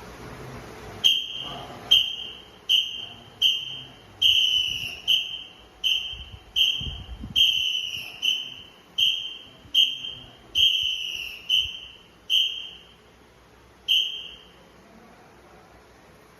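A whistle blown in a steady cadence, about sixteen short blasts roughly one every 0.8 s with a few held longer, calling the count for each movement of a calisthenics drill. It stops near the end.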